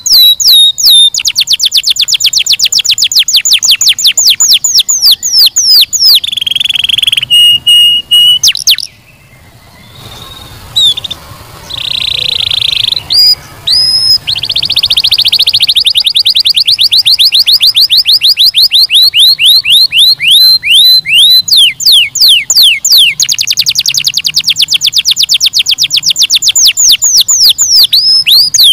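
Domestic canary singing: long, fast trills of repeated high notes that change from one phrase to the next, with a short break a little before the middle and a long rolling trill after it.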